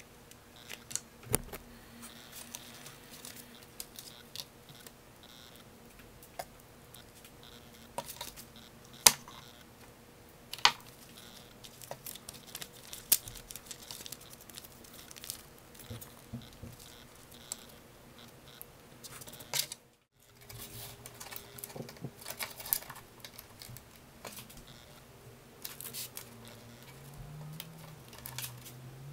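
Hand-work noise from paper and thread being handled on a wooden bench: scattered light clicks, taps and paper rustles, with a sharper click about nine seconds in. A low hum that wavers in pitch comes in near the end.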